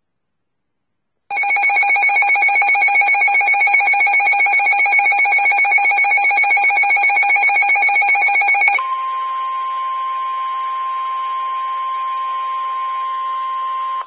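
A weather radio's alert alarm sounds a loud, rapid trilling tone for about seven seconds, then switches to a steadier, quieter single-pitch warning tone held for about five seconds. Together they signal an incoming severe thunderstorm warning.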